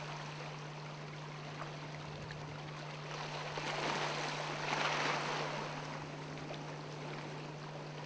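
Water lapping and sloshing gently, swelling for a few seconds mid-way, over a steady low hum. The shearwater on the water is not calling.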